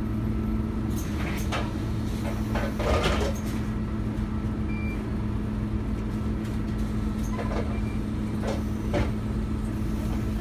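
Scania OmniCity single-deck bus idling at a stop, heard from inside the saloon: a steady low engine hum. Short clatters and rustles come about a second in and again around eight seconds as a passenger boards.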